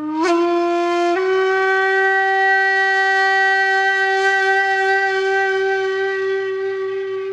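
Background music: one long held note on a reedy wind instrument. The note steps up in pitch twice in the first second or so, then holds steady and fades slightly near the end.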